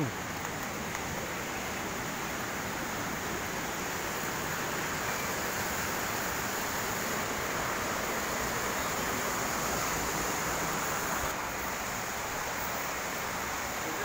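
Steady rush of water from the river and waterfall, growing slowly louder and easing a little near the end.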